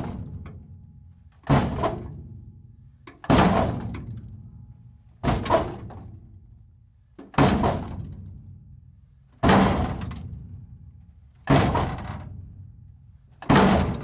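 Heavy metal machinery being struck and breaking apart, in a series of hard crunching impacts. There are about seven, roughly two seconds apart, each dying away with a low rumble over a second or so.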